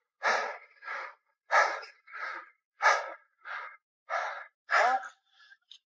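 A cyclist's fast, heavy breathing while pedalling, close to the microphone: quick breaths in and out, one roughly every half second.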